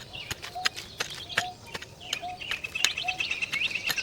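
Birds chirping and calling, with short lower notes mixed in and a steady high trill joining about halfway through. Sharp clicks or taps are scattered throughout.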